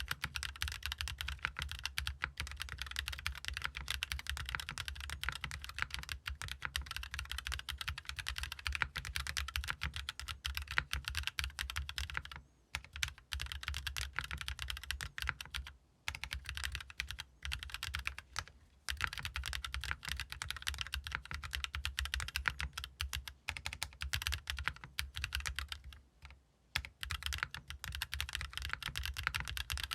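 Fast, continuous typing on a mechanical keyboard fitted with Haimu Raw switches. The board has an aluminium plate, an O-ring mount, no foam and ABS double-shot keycaps. The keystrokes run in dense streams, with a few short pauses about 12, 16, 19 and 26 seconds in.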